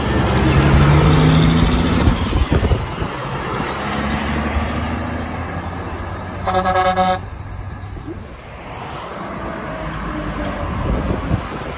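Kenworth W900B dump truck's diesel engine running close by, then one short blast on its Grover 2000 air horns about six and a half seconds in, lasting under a second. Road traffic noise follows.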